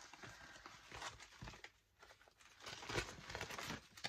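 A large sheet of fibre paper rustling and crinkling as it is unfolded and handled, busier in the second half.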